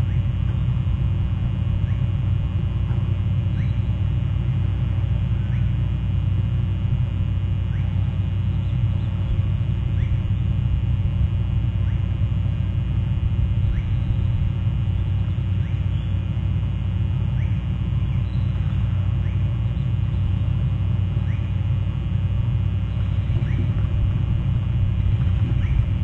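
Steady low rumble on an outdoor live-cam's audio, with faint, short rising calls of oystercatchers every second or two.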